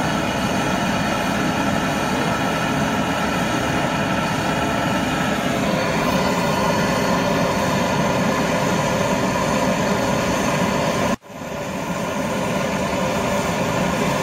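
Gas brazing torch flame burning steadily with a loud, even hiss while heating a copper capillary tube joint on a fridge filter drier. The sound cuts out for an instant about eleven seconds in, then resumes.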